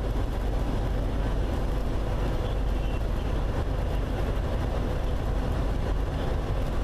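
Steady engine and road noise inside a truck's cab, driving along the highway.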